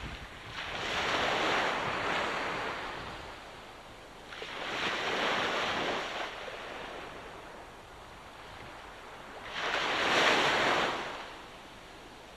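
Ocean waves breaking on a shore, three in turn, each swelling up into a rushing wash and then fading to a low hiss before the next. The third wave, about ten seconds in, is the loudest.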